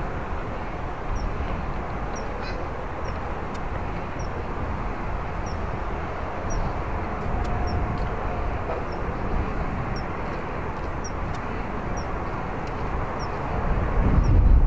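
Strong wind buffeting the microphone, a constant low rumble. A short, faint, high chirp repeats about once a second above it. The wind noise grows louder near the end.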